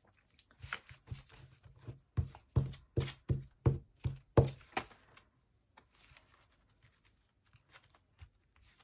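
Glue stick rubbed back and forth over a scrap of paper lying on a cutting mat: a run of about seven quick scraping strokes, nearly three a second, in the middle, with faint paper handling before and after.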